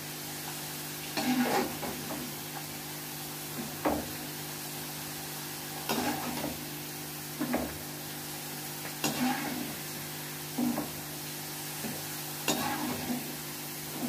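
Fried potato strips sizzling in hot mustard oil in a nonstick kadai as they are lifted out, with a utensil scraping and clinking against the pan seven times, about every one and a half to two seconds. A steady low hum runs underneath.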